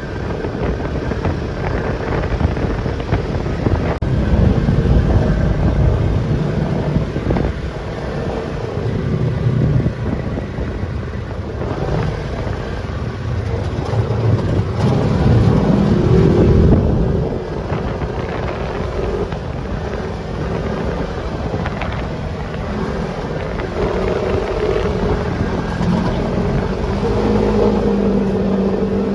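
Off-road vehicle engine running under changing throttle, its pitch rising and falling, with louder surges about four seconds in and again around fifteen seconds. Wind buffets the microphone underneath.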